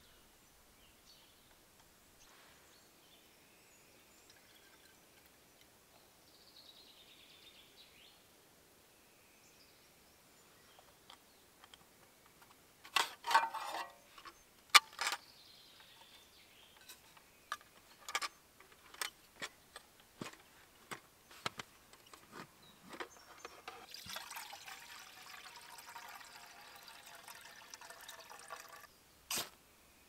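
Metal clinks and knocks as the pieces of a Polish army mess kit and its folding stove stand are taken apart and set down, loudest about a third of the way in. Near the end, a few seconds of liquid being poured into the metal mess tin.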